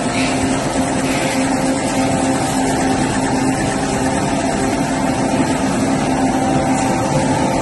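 Toilet paper and kitchen towel converting machine with a nested embossing-lamination roller unit running at speed: a steady mechanical hum and whir with a constant drone that does not change.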